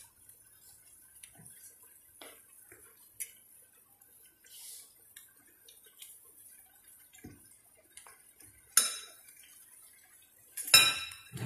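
Metal cooking utensils and cookware clinking and tapping in a kitchen: scattered light taps, then a sharp clatter about nine seconds in and a louder clatter near the end.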